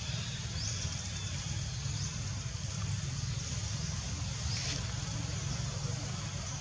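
Steady outdoor background noise: a constant low rumble under a steady high-pitched hiss, with a few faint short chirps. No monkey calls.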